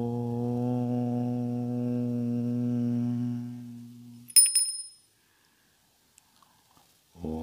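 A man's voice chanting a long, steady "Om" that fades out about four seconds in. A bell rings briefly right after, then a new "Om" begins near the end.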